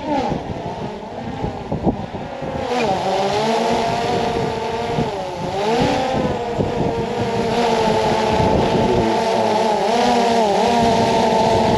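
DJI quadcopter drone's propellers whining at close range, the pitch dipping and rising together several times as the motors change speed while it manoeuvres back in. It grows louder from about two and a half seconds in as it comes nearer.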